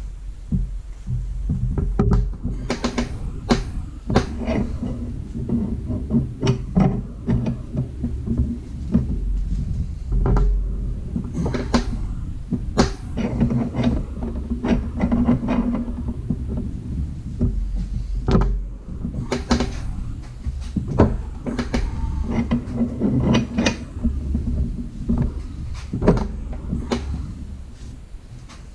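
Irregular ratchet clicks and metal-on-metal knocks from a ball joint press being wound down to push a new ball joint into an upper control arm, over a steady low hum.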